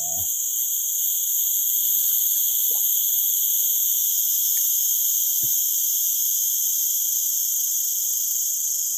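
Steady chorus of forest insects: a continuous high-pitched buzzing at several pitches at once. A faint brief click about five and a half seconds in.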